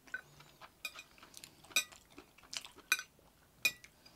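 Stainless-steel chopsticks clinking on a ceramic plate while picking up small scraps of food: a series of sharp, short clinks, about seven, at an irregular pace.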